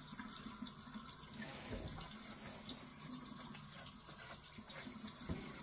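Kitchen tap running steadily into the sink, filling it with dish water, with a couple of soft knocks.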